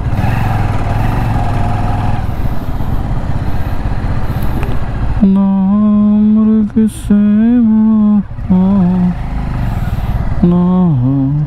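Wind and engine noise of a motorcycle ride, then from about five seconds in a man humming a tune over it in long held notes that slide up and down, breaking off briefly twice.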